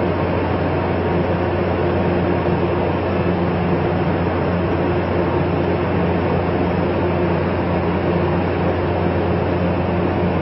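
Ship's machinery running with a steady, unchanging drone and a constant low hum.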